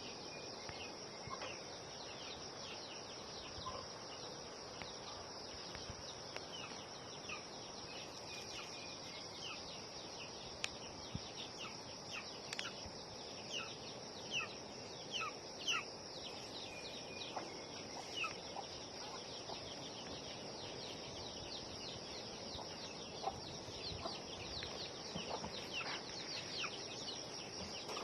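Rural outdoor ambience: a steady high drone of insects, such as crickets, with many short, falling bird calls scattered through it.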